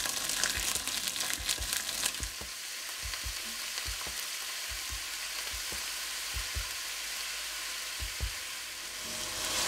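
Beef short ribs sizzling as they brown in hot fat in an enameled cast-iron pot. A steady hiss with crackles, busiest in the first two seconds.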